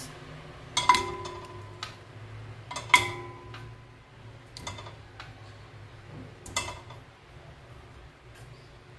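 Pieces of raw pork spareribs dropped one by one into an empty stainless steel pressure cooker pot, each bony piece landing with a clank that leaves the pot ringing briefly. There are two loud clanks about one and three seconds in and a few softer knocks after them, over a low steady hum.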